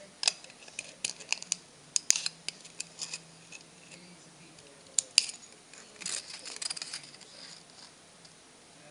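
Scissors cutting the thin aluminium wall of a soda can: a run of sharp snips as the blades close, two loud ones about five seconds in, then a denser stretch of cutting a second later.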